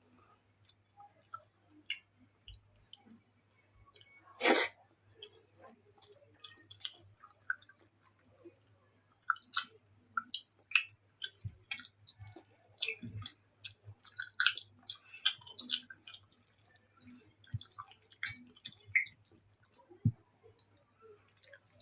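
Close-miked chewing and wet mouth smacks of a person eating taro curry with rice, in irregular short clicks. One louder, brief rush of noise about four and a half seconds in; a faint steady low hum underneath.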